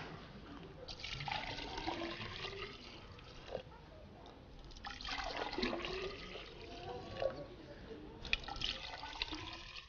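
Liquid poured from a plastic jug into tall glass cylinders, three separate pours into one cylinder after another, each a splashing stream lasting one to three seconds. The first starts about a second in, the next about five seconds in and the last about eight seconds in.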